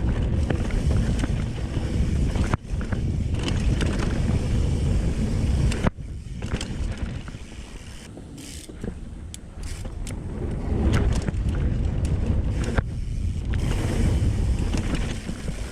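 Downhill mountain bike riding heard from a camera mounted on the rider: wind rushing over the microphone, with knobby tyres rolling on a dirt trail and frequent clicks and rattles from the bike's chain and frame. There are quieter stretches where the wind drops.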